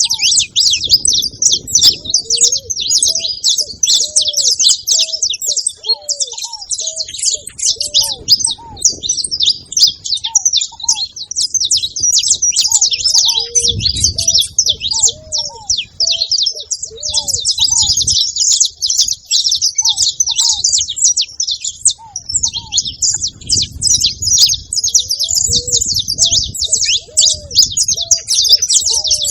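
Several saffron finches chirping and singing together in a dense, unbroken chatter of fast high notes. Beneath it, low arched cooing notes repeat every second or so.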